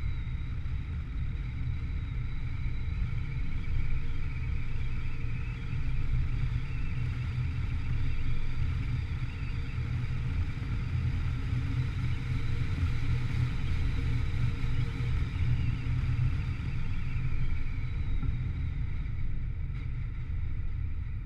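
Steady low rumble of a vehicle travelling along a paved road, heard from a camera mounted on it, with a few faint steady whining tones above.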